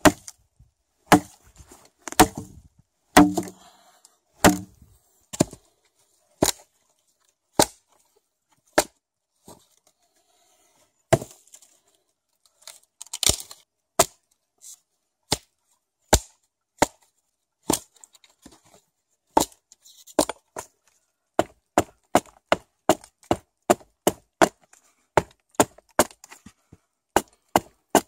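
Hatchet chopping dead, weathered wood: a series of sharp single strikes, about one a second at first, quickening to about two a second in the second half.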